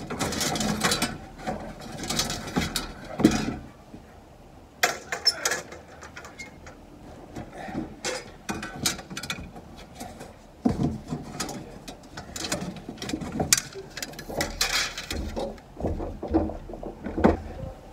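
Loose metal car parts from a 1965 Mustang clattering and clinking as they are handled and pulled out of a box, in a string of irregular knocks mixed with rustling.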